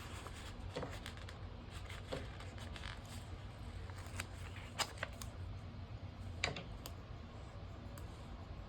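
Paper stickers being peeled from a sheet and pressed into a planner: soft rustling and small clicks, with two sharper ticks near the middle, over a steady low room hum.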